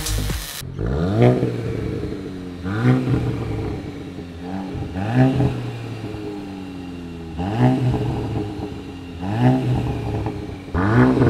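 2024 Volkswagen GTI's turbo four-cylinder revved in neutral while parked: about six quick blips, roughly two seconds apart, each rising and falling back to idle. It is heard through a muffler-delete exhaust, with a Y-pipe to twin double-wall tips and the resonator still in place.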